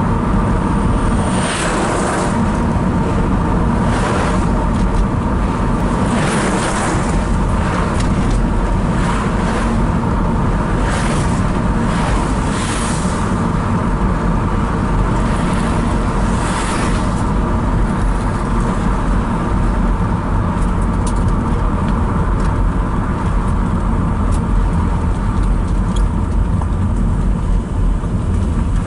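Steady road and tyre noise from a car driving along a highway, with a series of whooshes as oncoming trucks and cars pass, about eight in the first seventeen seconds, then a steadier stretch as it slows through roadworks.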